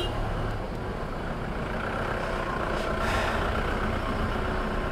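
Motorcycle engine idling at a standstill in slow street traffic, with a steady rumble of surrounding vehicles.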